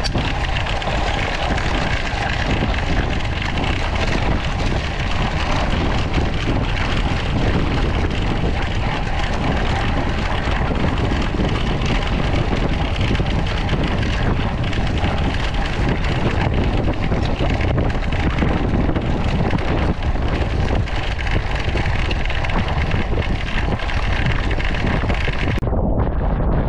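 Road bike clattering and vibrating over rough cobblestones, with heavy wind buffeting on the camera microphone. A continuous rattle with a deep rumble underneath. The higher rattle drops away abruptly about a second before the end.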